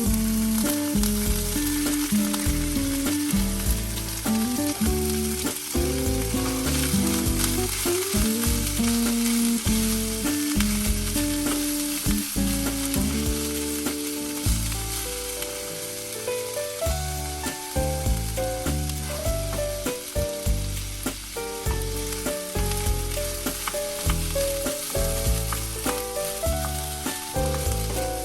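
Background music: a bass line and melody notes changing about every half second, over a constant sizzling crackle.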